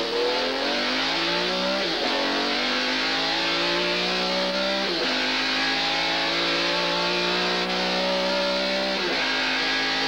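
Car engine accelerating hard through the gears: its pitch climbs steadily, then drops at each upshift, three times.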